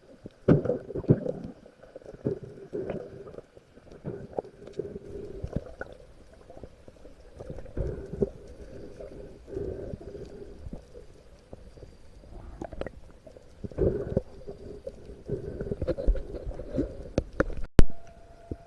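Muffled underwater water movement and gurgling, rising and falling irregularly with scattered small clicks, and one sharp crack about eighteen seconds in.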